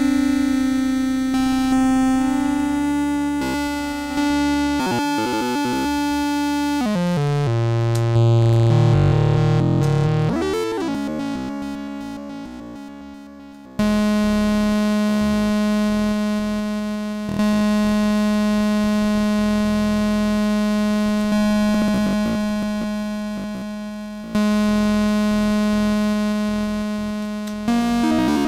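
Teenage Engineering OP-1 synthesizer playing long held notes, one after another, each fading slowly before the next, through its phone effect, which gives a dial-up-modem feel, while the effect's settings are turned. Partway through the pitch swoops down and back up.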